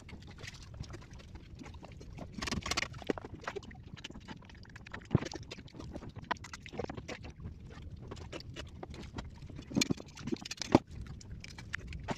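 Close-up eating noises as raw sea urchin is eaten: irregular wet lip smacks, slurps and clicks, the loudest a little before the end. There is a low, steady background noise throughout.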